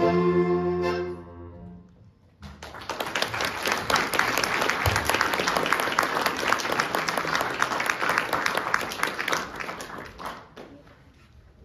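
Accordion music ends on a held chord and dies away, then after a short pause an audience applauds for about eight seconds before the clapping fades out near the end.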